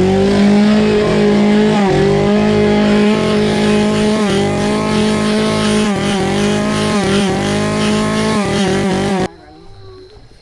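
Two-stroke chainsaw held at full throttle, running high and steady with several brief dips as the throttle is eased and opened again. It stops suddenly about nine seconds in.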